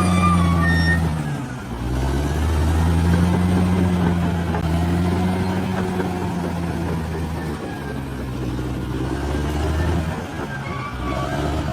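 Large bulldozer's diesel engine running steadily under load. Its pitch sags about a second and a half in and again near the end as it lugs, then picks back up.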